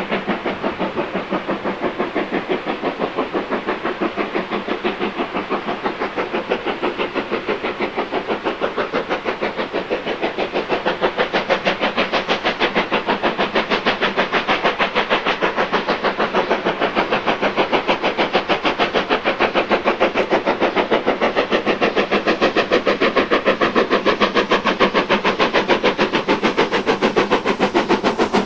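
Steam locomotive working hard, its exhaust beating in a fast, even rhythm of several chuffs a second, growing louder as it draws nearer.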